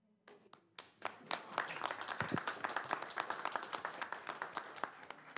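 Applause from a small group of people, starting with a few claps, filling in about a second in, then thinning out near the end.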